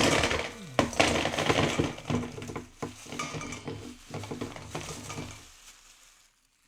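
Ice cubes clattering into a stainless steel bowl: a dense run of clinks and knocks that thins out and stops about five and a half seconds in.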